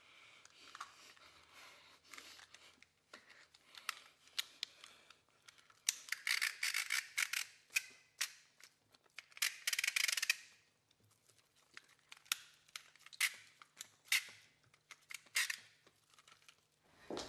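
A run of sharp clicks and snips mixed with rasping, scraping noises, loudest in two stretches in the middle, over a faint steady low hum.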